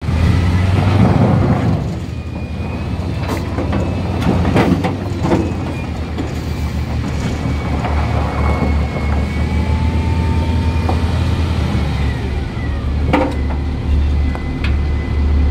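SDLG 936 wheel loader's diesel engine running under load, heard from the cab, with a steady low drone. Several sharp clunks and rattles come as the bucket digs into and lifts a load of crushed stone, and a faint high whine is heard at times.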